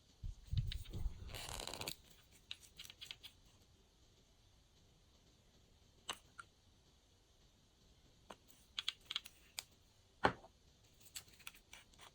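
Glossy slime being squished and worked by hand, making scattered sticky clicks and small pops. There is a louder burst of handling noise with low thumps in the first two seconds, and another cluster of clicks near the end.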